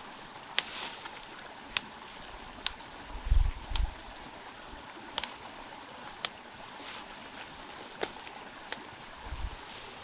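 Insects shrilling steadily in two high, even tones, with a sharp snap about once a second as young shoots are broken off by hand, and a louder low rustling thump of brush about a third of the way in and again near the end.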